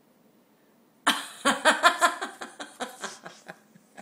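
A person laughing in a quick run of bursts starting about a second in, tailing off into scattered faint clicks.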